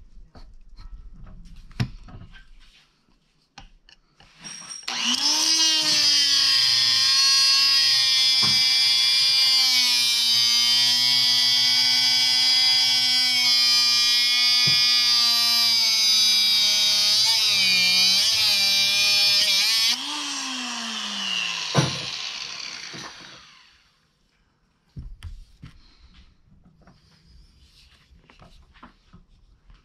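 Angle grinder with a cut-off wheel runs up and cuts through the steel crimp collar of a hydraulic hose fitting held in a vise, a steady high whine for about fifteen seconds. It is then switched off and winds down with falling pitch.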